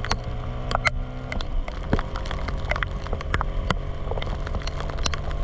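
Classic Vespa scooter's two-stroke engine running steadily while riding on a wet road in the rain, with irregular sharp ticks of raindrops striking the camera.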